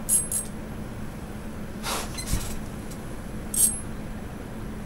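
Fishing reel's drag giving line in short zips as a large fish runs during the fight: a few brief bursts near the start, about two seconds in and again about three and a half seconds in, over a steady low hum.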